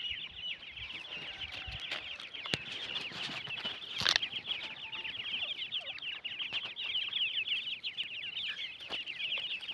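A group of grey francolin chicks peeping nonstop: rapid, high-pitched cheeps, many a second, overlapping one another. A sharp click sounds about four seconds in.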